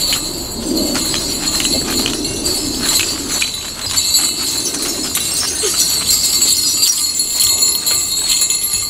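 Small jingle bells shaken continuously, a bright, steady jingling with many small irregular strikes.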